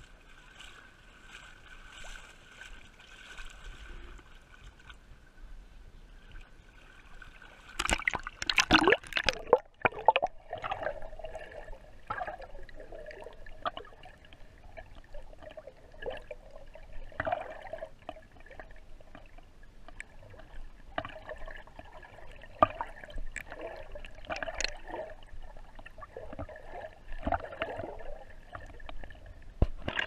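Lake water lapping and sloshing against an action camera's closed waterproof housing, muffled by the case. About eight seconds in there are several loud splashes as the camera goes into the water, then irregular underwater sloshing and gurgling.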